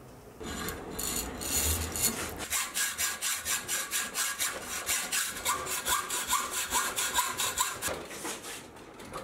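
Hacksaw cutting through a round steel bar clamped in a vise, in steady back-and-forth strokes, about two a second, with a faint metallic ring. The sawing stops shortly before the end.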